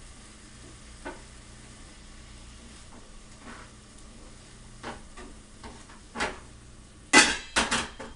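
Collard greens being stirred in a frying pan: a utensil scraping and knocking against the pan now and then over a faint sizzle, with a burst of much louder clatters near the end.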